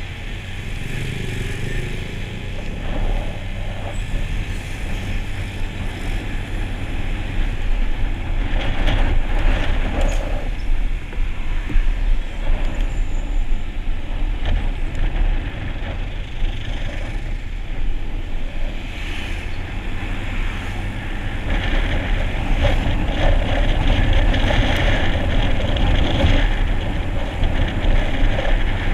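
Riding noise from a Honda motor scooter on the road: steady wind and road rumble with the scooter's engine and passing traffic.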